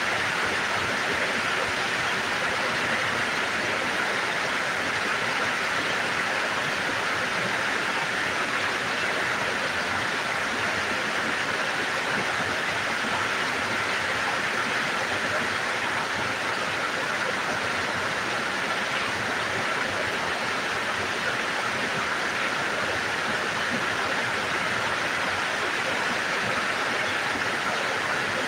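Steady rain falling, an even hiss with no breaks or changes.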